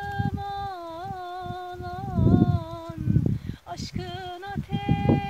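A high voice singing or humming a slow melody in long held notes that glide gently between pitches, with gusts of wind buffeting the microphone.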